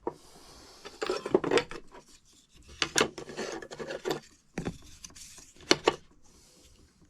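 Metal hand tools being handled and shifted about on a surface: a series of clinks and knocks with scraping and rubbing between them.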